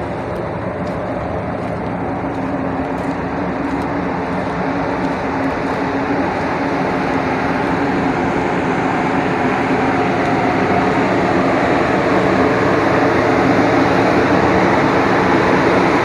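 Steady drone of a cargo ship's machinery on deck, a rushing noise with a faint steady hum in it, growing slowly louder.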